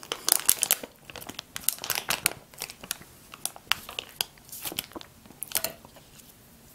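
A brown paper tulip muffin liner crinkling and tearing as fingers peel it away from a muffin, in scattered clusters of short rustles and crackles.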